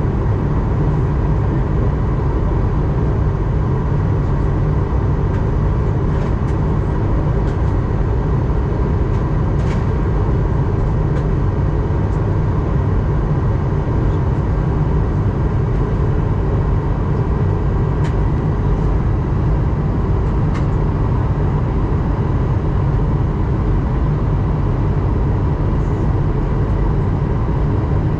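Steady cabin noise of an Airbus A220-100 in flight: an even roar of airflow and engines, heaviest in the low end, with faint steady tones above it and a few light ticks.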